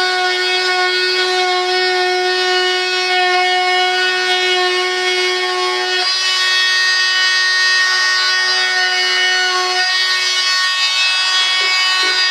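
High-speed rotary cutting tool whining steadily as it cuts through carbon-fibre composite, the cut opening for the main landing gear. Its tone changes about six seconds in and again near ten seconds, as the load on the tool shifts.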